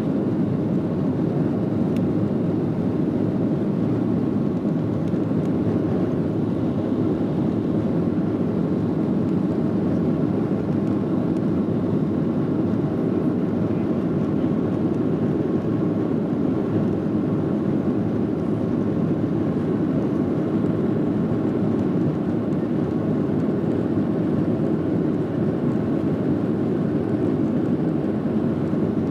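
Cabin noise inside a Boeing 737-700 climbing out after takeoff: a steady low rumble of its CFM56-7B turbofans and the airflow over the fuselage, unchanging throughout.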